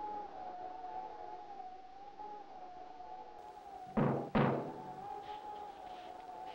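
Two sharp knocks in quick succession on the Blue Flame rocket car's cockpit canopy, about four seconds in. Behind them, a steady, slightly wavering high tone sounds throughout.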